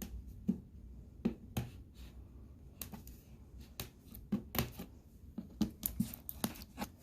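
Irregular light clicks and taps of a cardboard box being handled while the tape holding it shut is cut.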